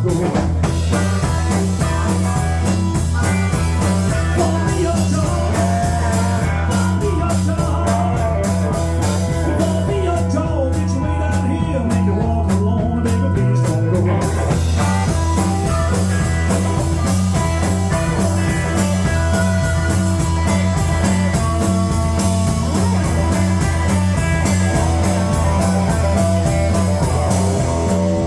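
Blues-rock band playing an instrumental break: electric guitar lead with bending notes over a repeating bass riff and a steady drum beat.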